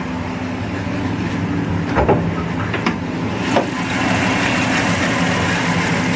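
Ford XW Falcon's stock 3.6-litre inline-six engine idling steadily, getting a little louder about four seconds in. The engine is fairly tired, and the owner finds it a little rumbly in the bearings.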